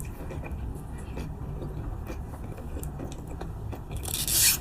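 Close mouth sounds of a person chewing soft durian flesh, with faint scattered clicks. A short hissing rustle about four seconds in is the loudest sound.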